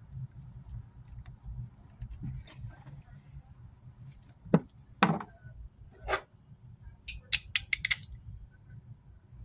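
Metal hand tools clinking and knocking against each other: a few separate sharp clinks around the middle, then a quick run of clinks near the end.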